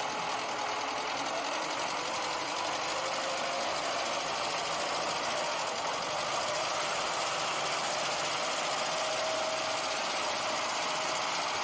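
Tractor engine running steadily with a fast mechanical chatter.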